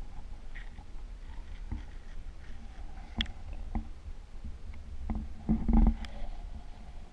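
Low, muffled rumbling of water and handling noise from a camera moving in a shallow pool, with scattered soft clicks and knocks. A louder rumbling bump comes about five and a half seconds in.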